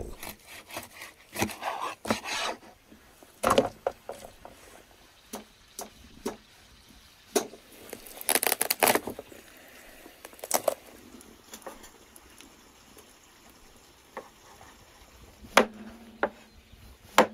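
Large cleaver cutting up a lamb carcass on a wooden board: irregular knocks of the blade against the wood, with quieter slicing and handling of the meat in between. A sharp knock near the end is the loudest.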